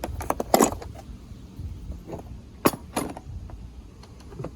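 Metal machinist's tools and a small wooden case being handled, clinking and knocking: a quick cluster of clinks about half a second in, then two sharp knocks a little past the middle, with a few lighter taps between.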